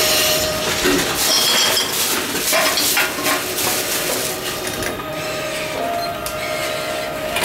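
Envipco ULTRA 48 reverse vending machine mechanism running, with rapid clicks and clatter that are busiest in the first three seconds and thin out after that.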